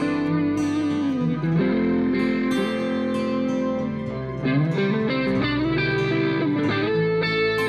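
Instrumental theme music led by a guitar, its melody notes sustained and gliding between pitches.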